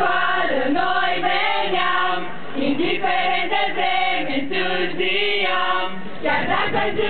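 A group of students singing together in unison, mostly girls' voices, with a short break between lines about six seconds in.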